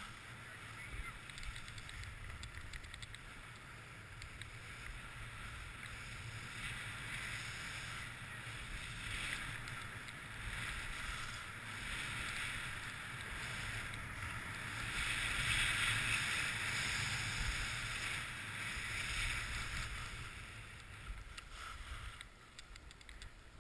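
Skis sliding and carving over packed, groomed snow: a steady scraping hiss that rises and falls, loudest a little past the middle, over a low rumble of wind on the microphone.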